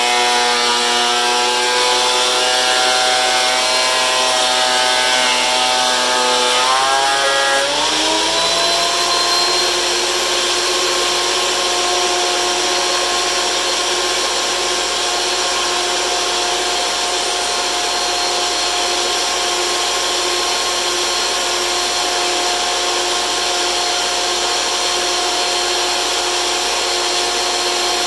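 DeWalt benchtop thickness planer running, its motor whine pitched lower while a board feeds through the cutterhead under load. About seven seconds in, the whine climbs as the board clears the cutterhead, and the planer then runs steadily unloaded.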